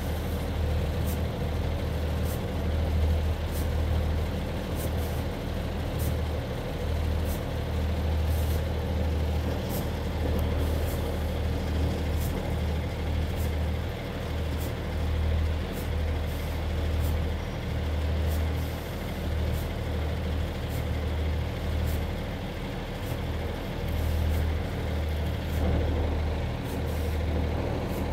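Diesel multiple units running, with a Class 144 Pacer railcar moving slowly past: a steady, deep underfloor diesel engine drone with faint regular ticking above it.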